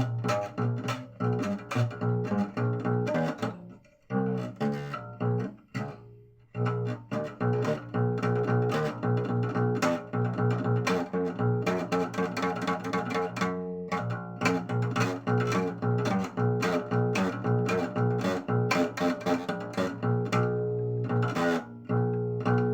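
Music played on plucked string instruments over a strong bass line, with many quick plucked notes; it drops away briefly twice about four and six seconds in.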